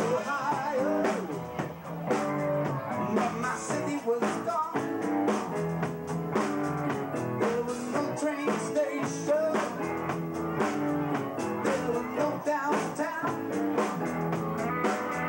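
Live rock band music on a camcorder recording: an instrumental passage with an electronic keyboard being played over a steady drum beat.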